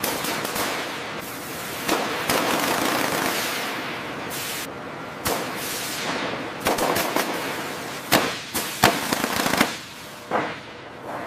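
Metalworking tools at work on an airframe: a loud, dense crackling hiss that starts abruptly, broken by repeated sharp metallic knocks, the loudest about eight and nine seconds in.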